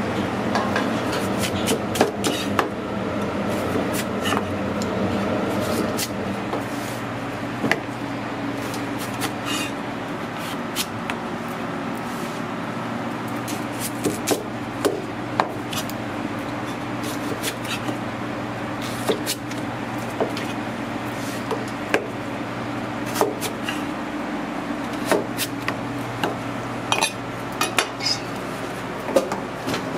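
A cleaver chopping potatoes into wedges on a cutting board: sharp, irregular knocks of the blade striking the board, over a steady background hum.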